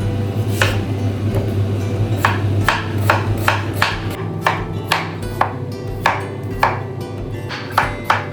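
Background music over a run of sharp taps, sparse at first and then about two to three a second from about two seconds in.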